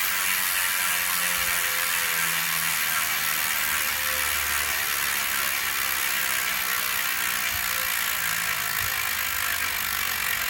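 Trail Mech bicycle freehub with 60 points of engagement freewheeling: its pawls click so fast that they blend into a steady ratchet buzz.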